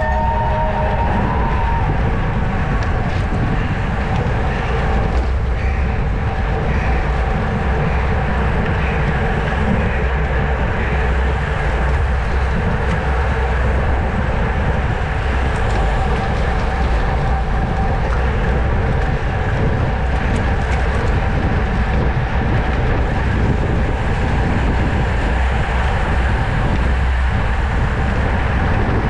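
Road bike ridden at speed: steady, heavy wind rumble on the camera microphone, with a steady hum from the tyres and drivetrain.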